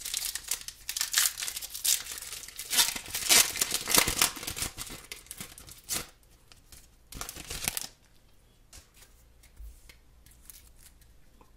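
Foil Pokémon booster-pack wrapper being torn open and crinkled by hand: a crackling tear and rustle for about six seconds, a shorter crinkle near the eight-second mark, then only faint clicks of cards being handled.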